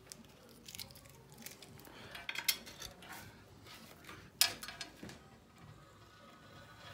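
Utility knife blade scraping excess tile adhesive off a porcelain tile joint, in short irregular scrapes and clicks; the sharpest one comes about four and a half seconds in.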